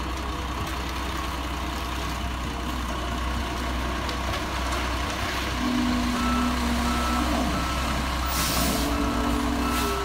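Concrete mixer truck's diesel engine running steadily. About two-thirds of the way through, a reversing-alarm beep starts repeating, and a short hiss of air comes near the end.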